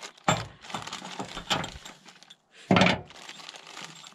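Small plastic bags of hardware and tools being handled and set down on the truck bed: plastic crinkling and small metal pieces clinking. The sounds come in a few short bursts, the loudest about three seconds in.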